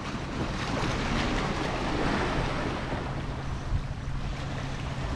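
Sea waves washing against shoreline rocks, with wind buffeting the microphone.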